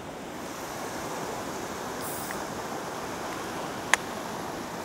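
Surf washing steadily onto the beach, with one sharp click a little before the end.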